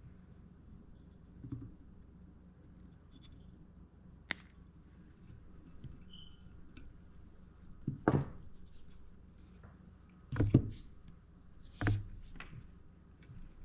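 Close-up bench work with small hand tools and drone parts: one sharp snip about four seconds in, like cutters clipping a motor wire, then three louder knocks and rustles of parts being handled in the second half.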